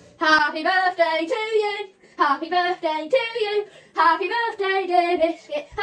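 A boy singing on his own with no accompaniment: high, wavering phrases in three runs, with short breaks about two and four seconds in.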